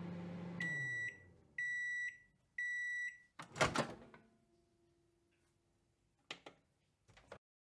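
Microwave oven running with a steady hum that winds down as it stops, then three beeps about a second apart as the timer runs out, followed by a loud clunk of the door opening. Two short clicks follow near the end.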